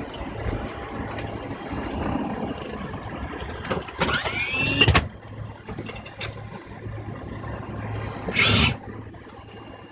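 Boeing 747 cockpit noise as the airliner slows after landing: a steady hum of engines and systems. About four seconds in comes a short loud sound with a gliding pitch, and near the end a brief loud rushing burst.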